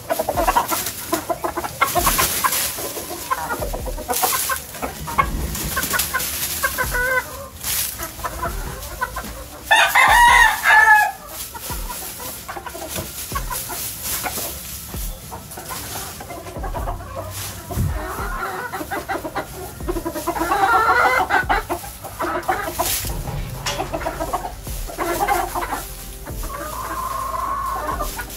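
Gamefowl chickens in a pen: hens clucking, and a rooster giving a loud crow of about a second and a half about ten seconds in.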